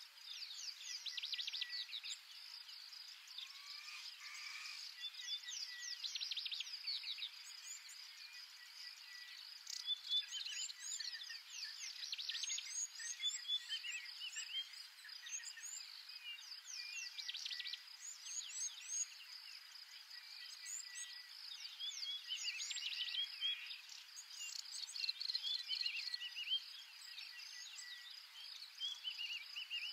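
Natural savanna ambience: bouts of high, rapid chirping and trilling calls every few seconds over a steady high insect-like buzz.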